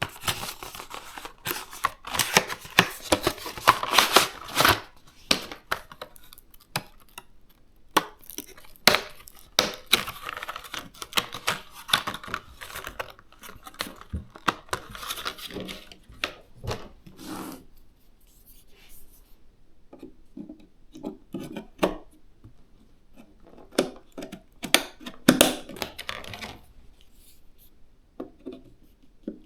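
Packaging being handled and torn open, rustling and tearing in stretches, with scattered clicks and taps of parts and boxes being handled.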